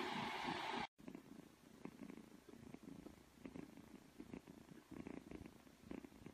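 Kitten purring faintly while dozing, in soft uneven pulses. A steady rushing noise cuts off abruptly about a second in, before the purring.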